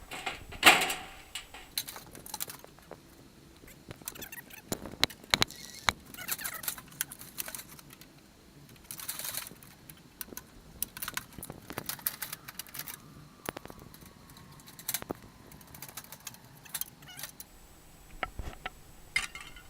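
Irregular metallic clinks, clicks and knocks of hand tools working on an air conditioner's sheet-metal casing and copper tubing, with one loud clank about a second in.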